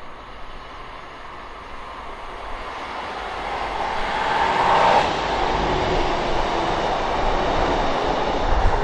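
A diesel multiple unit passenger train approaches, its engine and wheels on the rails growing steadily louder. It peaks about halfway through as it passes beneath, then keeps up a loud, low engine rumble.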